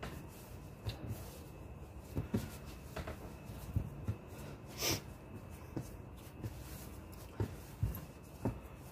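Hands kneading bread dough on a kitchen countertop: soft, irregular thumps and pats as the dough is pressed and folded, with a short hiss about five seconds in.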